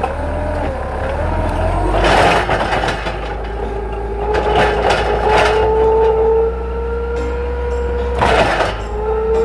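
Diesel forklift running while being driven, a steady engine note under a whine that slowly rises in pitch. Three short bursts of noise break in about two, five and eight and a half seconds in.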